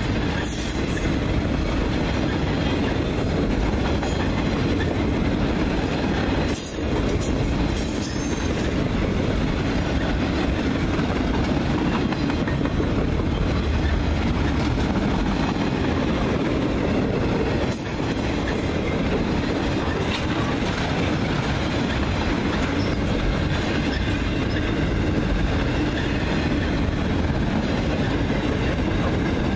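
Freight train of loaded flatcars rolling steadily past, its steel wheels rumbling and clacking over the rails.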